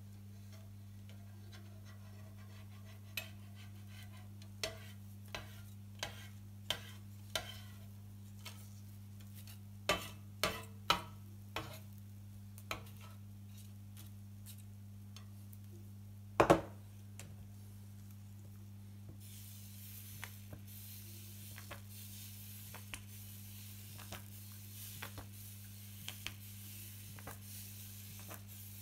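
A spatula scrapes and taps on a hot griddle plate as cooked chocolate pancake strips are gathered up, with one loud knock about halfway through. From about two-thirds of the way in, chocolate pancake batter squeezed from a bottle sizzles steadily on the hot plate. A low steady hum runs underneath.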